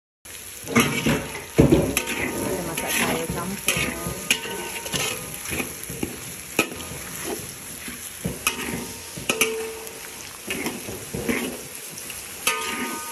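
Metal spatula scraping and knocking irregularly against a metal wok during stir-frying, over a steady sizzle.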